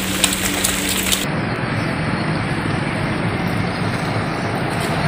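Outdoor background noise with a dull rumble, likely street or traffic noise. About a second in, a steady hum and high crackling stop abruptly and the noise turns duller.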